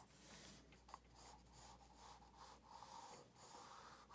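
Faint scratching of a graphite pencil on paper in a series of short sketching strokes.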